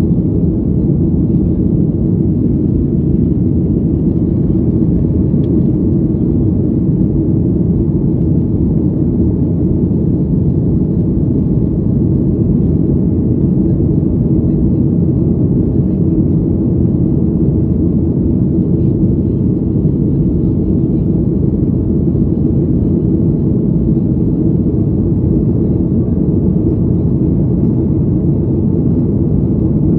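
Steady low rumble of jet engines and rushing air inside the cabin of a Boeing 737 climbing after takeoff.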